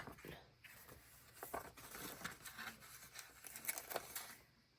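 Faint paper handling as a sticker is placed on a journal page: soft rustles and a few light ticks.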